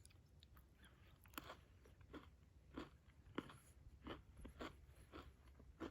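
A person chewing with faint crunches, about two a second, close to the microphone.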